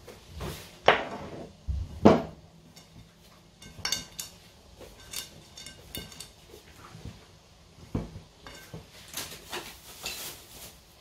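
Hands working crumbly griwech dough of flour, clarified butter and egg in a glass mixing bowl, with irregular knocks and clinks against the glass. The loudest knocks come about one and two seconds in.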